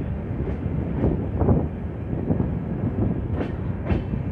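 Mandavi Express passenger coaches running along the track, a steady rumble of wheels on rails. Sharp wheel clicks come in two pairs about half a second apart, about a second in and again near the end.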